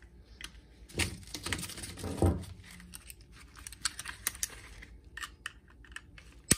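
Small clicks and metal handling as the blade of an OLFA 25 mm snap-off utility knife is slid out and its tip gripped with pliers, ending in one sharp snap as a blade segment breaks off.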